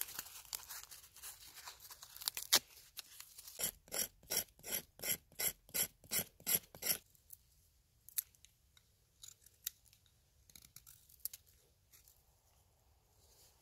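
Birch bark crinkling and tearing as it is handled, then a knife blade scraping it in about a dozen quick, even strokes, shaving off tinder. A few faint rustles and clicks follow as the shavings are gathered.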